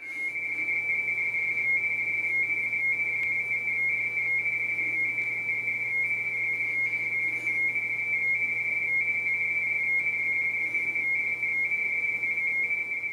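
RTTY (radioteletype) signal from an ICOM IC-7800 transceiver while it transmits: a steady high-pitched tone near 2 kHz that keeps flipping between two close pitches, the mark and space tones of the keyed data.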